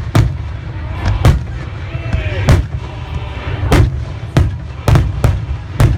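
Fireworks finale: shells bursting in a rapid string of loud bangs, about nine in six seconds, over a continuous low rumble of further explosions.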